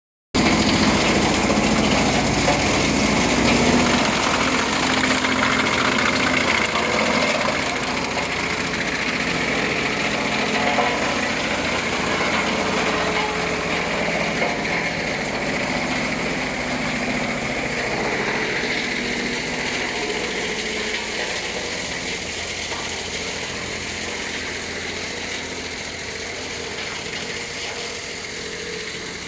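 Wood panel chipper (wood chip and sawdust crushing machine) running with a loud, steady mechanical noise that gradually gets quieter toward the end.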